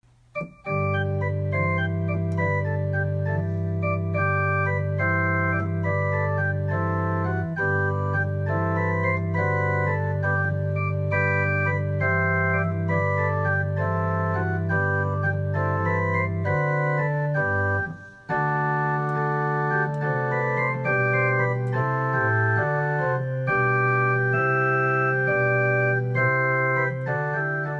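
Church organ playing the closing voluntary: held low pedal notes under moving chords. It starts just after the silence at the opening and breaks off briefly about two-thirds of the way through before carrying on.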